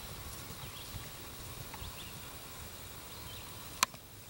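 Faint hoofbeats of a horse galloping on turf over a cross-country course, with a single sharp click near the end.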